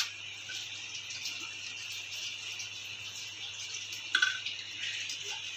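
Quiet background: a steady hiss with a low hum, and one faint short sound about four seconds in.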